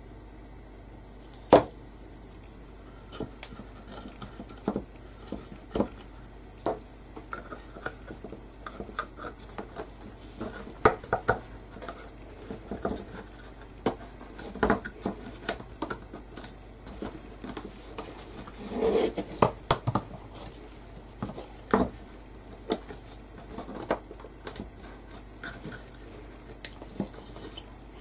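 Small craft pieces being handled and set down on a work table: scattered light taps, clicks and knocks, busier for a moment about two-thirds of the way through.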